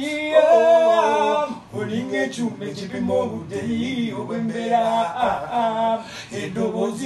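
A male voice singing unaccompanied, in drawn-out melodic lines with short breaks between phrases.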